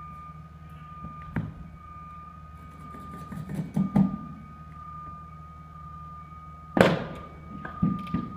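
Knocks and thuds of a window pane being handled with suction-cup lifters during installation, the loudest about seven seconds in, over a steady low hum and a continuous high-pitched tone.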